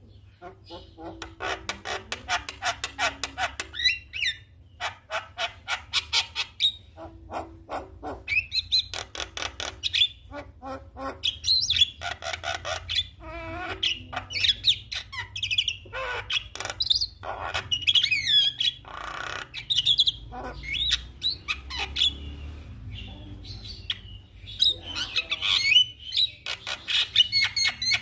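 Javan myna singing a long, varied song: bursts of rapid clicking rattles mixed with whistles and harsh chattering notes, broken by short pauses.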